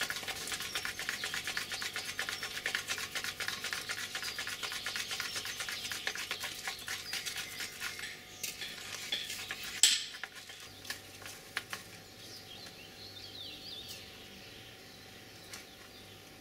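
Close, scratchy rustling made of many small clicks for about eight seconds, then a single sharp click about ten seconds in. After that it goes quieter, with faint birds chirping.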